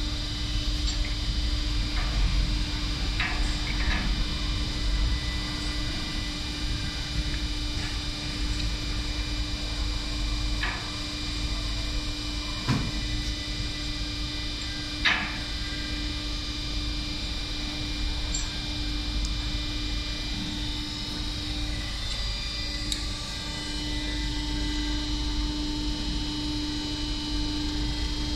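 Self-clinching fastener insertion press running idle, a steady hum with several steady tones. A few light metallic clicks and taps come through as the feed tooling is handled, the sharpest about 15 seconds in.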